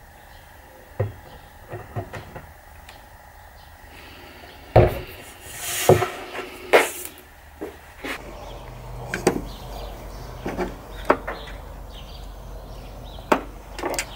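Sharp knocks and clicks of tools and wood being handled on a wooden tabletop, with a brief hissing rush about six seconds in. From about eight seconds a low steady hum sits under further clicks.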